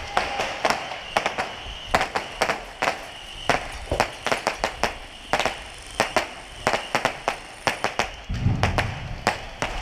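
Scattered sharp pops at an irregular pace, sometimes several close together: airsoft guns firing single shots. Wind begins buffeting the microphone near the end.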